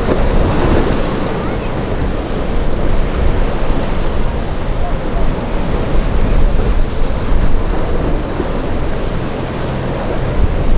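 Wind rumbling on the microphone over the wash of choppy ocean waves and surf.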